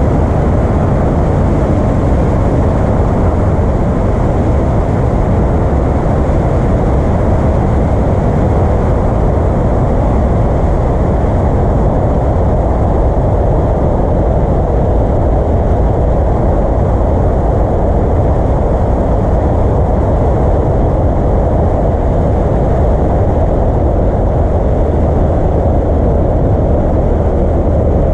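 Piper Arrow single-engine light aircraft's engine and propeller droning steadily in flight, heard from on board, loud and unchanging.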